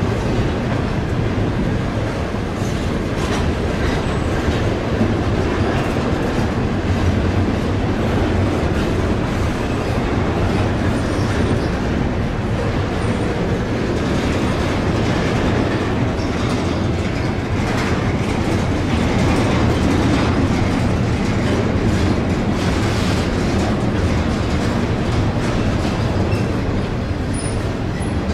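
Double-stack intermodal freight train rolling past at steady speed: a continuous rumble of steel wheels on the rails, with clicking as the wheels cross rail joints.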